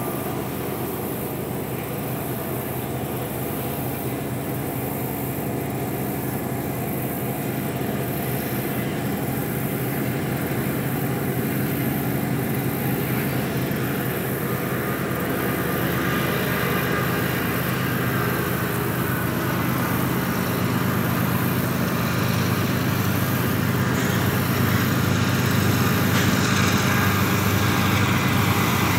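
Diesel freight locomotives, a GE ES40DC and an EMD SD70M-2, running past with a steady engine drone over the rumble of rolling freight cars, growing gradually louder.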